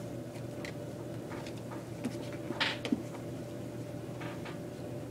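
Kittens scuffling around a bucket, with a few short knocks and scrapes of paws and claws against the container, the loudest about two and a half to three seconds in, over a steady background hum.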